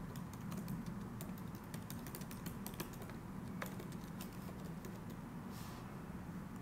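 Typing on a computer keyboard: quick, irregular key clicks as a line of text is entered.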